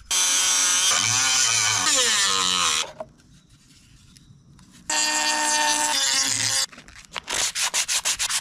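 Small high-speed rotary tool cutting through cow horn in two runs, its pitch wavering and sagging under load in the first. This is followed by sandpaper rubbed over the horn in quick, even strokes, about five a second.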